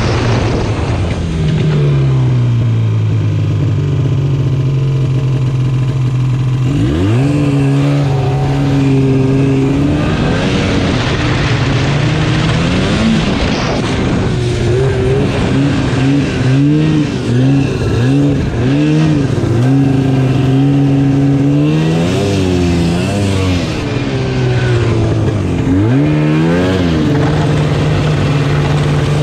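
Two-stroke snowmobile engine running under throttle. Its note drops about a second in and climbs sharply around seven seconds. It then mostly holds a steady pitch, with repeated dips and rises as the throttle is eased and reapplied.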